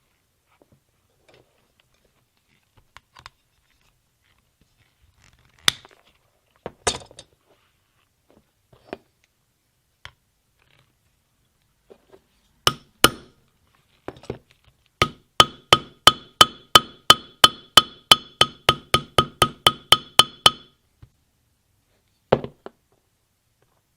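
Small ball peen hammer tapping on a rivet set to set and peen a #9 copper rivet. A few separate blows come first, then a quick run of about twenty light taps, roughly four a second, each with a metallic ring, and one more thud near the end.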